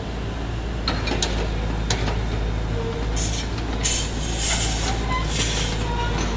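Komatsu hydraulic excavator at work: the engine runs with a steady low hum, under a few sharp metallic clicks in the first two seconds and then a harsher clanking clatter from about three seconds in.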